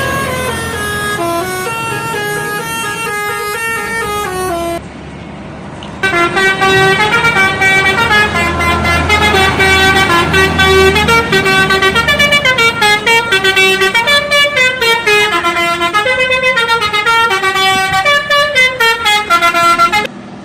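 Indonesian bus 'telolet' musical air horn playing quick tunes, note stepping after note. It drops off briefly about five seconds in, then plays a longer, louder run of rapid notes that stops shortly before the end.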